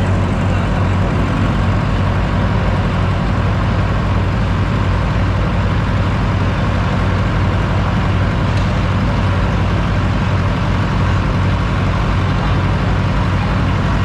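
Front loader's engine idling close by, a steady, even low drone.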